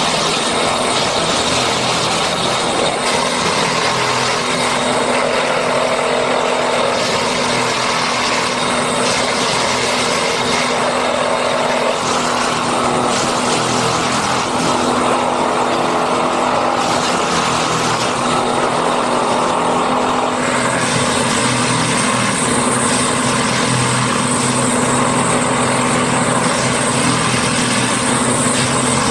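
Steady running noise of a Matisa railway track-maintenance machine as it moves slowly along the track, its diesel engine giving a low hum under a loud, even rush. The sound changes character about twenty seconds in.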